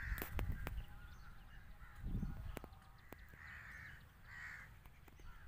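Crows cawing a few times, harsh calls at the start and again about three and a half and four and a half seconds in. Under them is a low rumble that swells about two seconds in, with a few sharp clicks.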